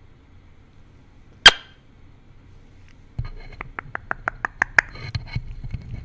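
Male Eclectus parrot's beak clicking against a microphone. There is one sharp click about a second and a half in. From about three seconds there is a low rumble and a quick run of clicks, roughly six a second, then scattered clicks as the beak nibbles and taps the microphone.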